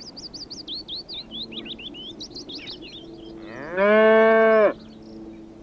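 Rapid high chirping birdsong, then, about three and a half seconds in, a single loud cow moo lasting about a second, rising in pitch at the start and then held. A faint steady low hum runs underneath.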